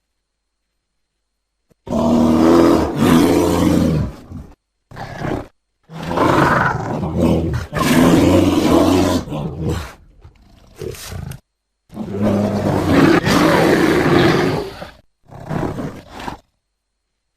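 Bear roars played one after another as separate sound-effect clips: after about two seconds of dead silence, a roar, a short one, a long roar, some quieter growls, then two more roars, each cut off abruptly into silence.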